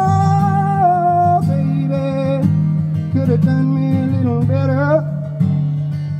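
Live solo song: a man sings over his own acoustic guitar, opening on a long held note, then shorter phrases, with the voice dropping out about five seconds in while the guitar plays on.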